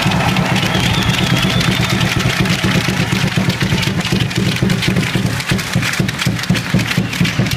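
Handball crowd cheering and clapping, with fans beating hand clappers, in a dense racket of rapid clacks over a heavy low rumble.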